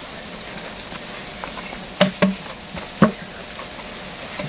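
Hands handling and opening a padded nylon tripod carry bag: light rustling with a few sharp clicks and knocks, a pair about two seconds in and a louder one about a second later.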